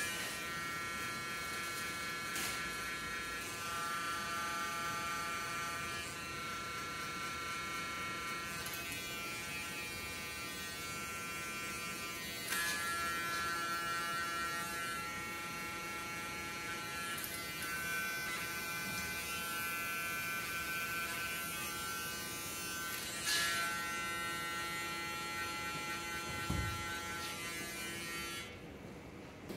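Electric hair clippers humming steadily as they trim the hair at the back of the neck, briefly louder twice, then switched off near the end.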